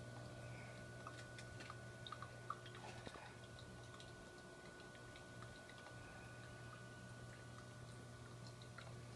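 Faint steady low hum of a small reef aquarium's running pumps, with a few small clicks and ticks about one to three seconds in.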